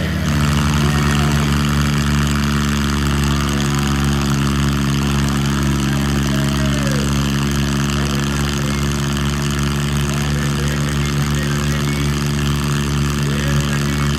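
Tractor diesel engines running hard under load as two tractors chained together pull against each other in a tug-of-war, the engine note held at a steady pitch.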